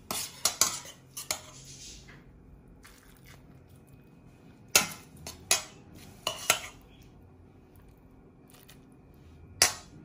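Metal kitchen utensils clinking against a metal pan: a cluster of sharp clinks at the start, four more about five to six and a half seconds in, and one near the end, as stuffing is scooped from the pan.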